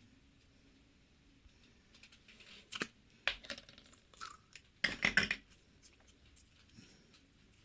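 Handling sounds during slime play: scattered short sticky clicks and crackles, with a denser burst about five seconds in.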